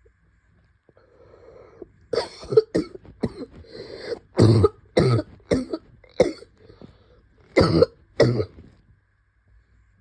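A person coughing with Covid-19. A throat clearing about a second in leads into a fit of about ten coughs in quick bursts, the strongest in the middle and near the end.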